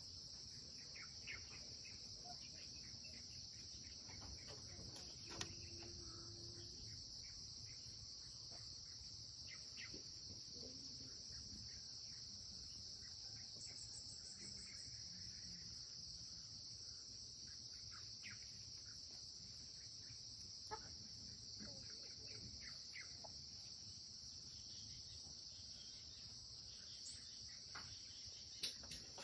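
Faint, steady high-pitched insect chorus, like crickets, with scattered short bird chirps.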